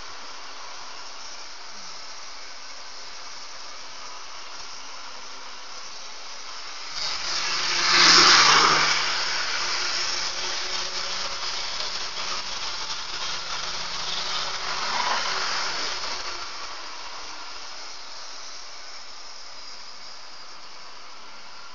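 H0-scale model train, two BN F45 locomotive models pulling a string of wagons, running past on the track: its running noise swells suddenly about seven seconds in, is loudest about a second later as the locomotives go by, and carries on with the passing wagons before fading by about sixteen seconds. A steady hiss lies under it throughout.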